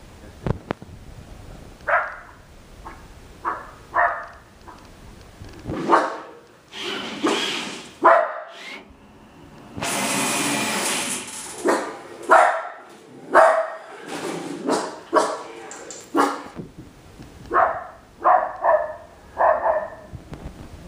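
West Highland White Terrier barking in short, sharp barks, in clusters with brief pauses and several in quick succession near the end. About halfway through, a loud rushing hiss lasts about a second and a half.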